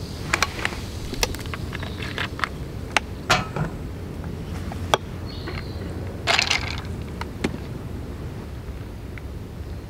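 Ice cubes clinking against a glass as a highball is stirred with a long metal bar spoon: a string of sharp, irregular clinks, with a denser rattle of ice a little past the middle.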